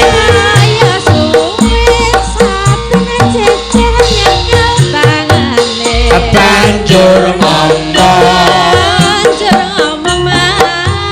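Javanese gamelan music with kendang drum strokes and ringing metallophones, with a sinden's wavering sung line over it.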